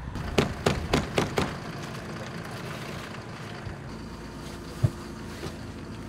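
Tracked Small Unit Support Vehicle running at idle, a steady low hum. About five sharp knocks come in quick succession in the first second and a half, and a single thump comes near the end.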